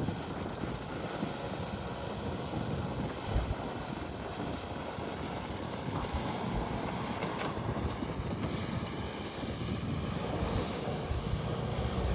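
Can-Am side-by-side running along, its engine a low, uneven rumble mixed with wind buffeting the microphone.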